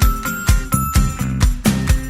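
Background music with a steady beat, about three beats a second, and high ringing notes over it.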